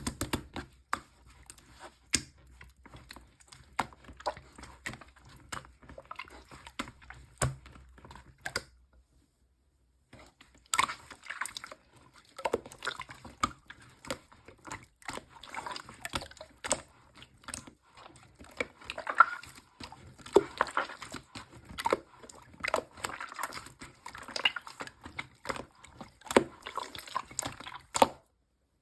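Pearl slime being squished and pressed by hand: a steady run of small wet clicks and pops. It stops for about two seconds around nine seconds in, and comes back denser and louder.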